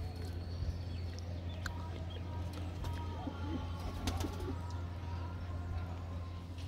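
Domestic pigeons cooing over a steady low hum.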